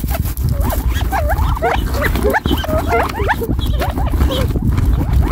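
A flock of Gambel's quail feeding, giving many short, soft calls that bend up and down and overlap one another, over a steady low rumble.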